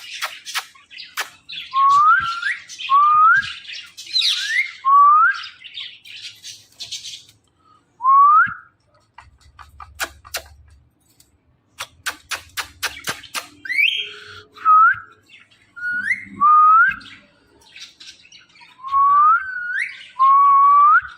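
Indian ringneck parrot whistling: a dozen or so short notes, each sliding upward, in irregular groups, with runs of sharp clicks in between.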